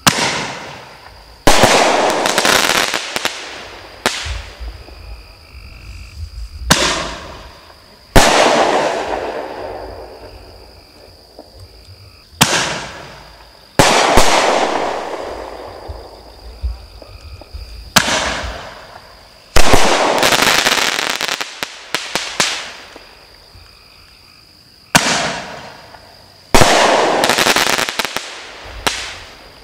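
Consumer double-break artillery mortar shells fired one after another: five rounds about six seconds apart, each a sharp bang followed about a second and a half later by a louder bang, with crackling that fades over several seconds.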